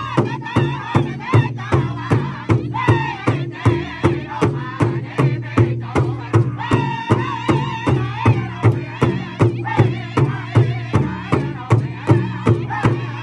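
Powwow drum group singing together while striking a large shared hand drum in unison with padded drumsticks, a steady beat of about three strikes a second under the chorus.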